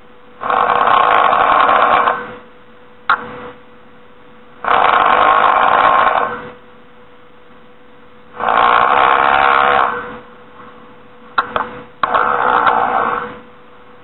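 A person snoring: four loud snores, each lasting under two seconds, coming about every four seconds, over a steady faint hum.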